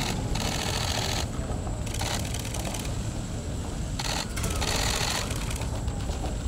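Press photographers' camera shutters firing in rapid bursts: about four runs of fast clicks, each under a second long, over a steady low rumble.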